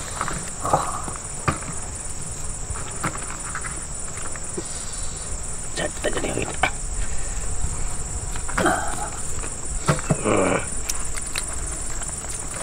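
Steady high-pitched chirring of crickets, with scattered short clicks and rustles of hands tearing grilled ribs apart on a banana leaf, and a few brief murmured voices.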